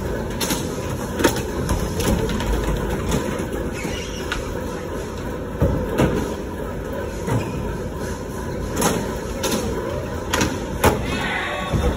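Skateboard wheels rolling on a concrete floor, with several sharp clacks of boards popping and landing, the loudest near the end.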